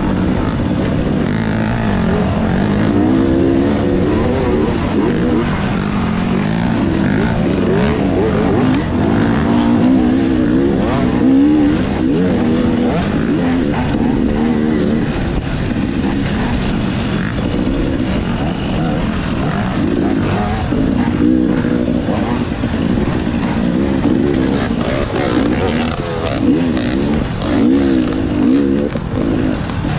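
Off-road motorcycle engine running hard, heard close from a camera mounted on the bike. Its pitch rises and falls over and over with the throttle along a rough dirt trail.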